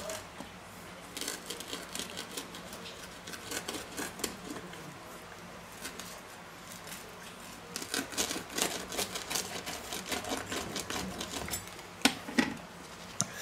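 Rolling pizza cutter wheel pressed through baked pizza crust onto a wooden plate, giving runs of fast crackling clicks in several passes, with a sharper click near the end.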